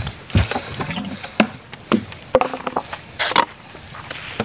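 Irregular footsteps and knocks from a PVC eel trap being carried at a quick walk along a dirt path, over a steady high insect drone.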